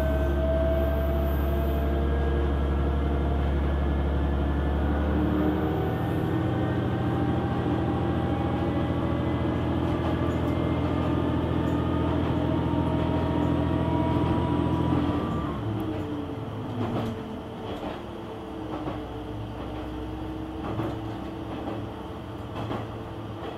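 KiHa 120 diesel railcar running under power, its engine drone steady and a gear whine slowly rising in pitch. About fifteen seconds in the engine drops back and the railcar coasts more quietly, with wheel clicks over the rails.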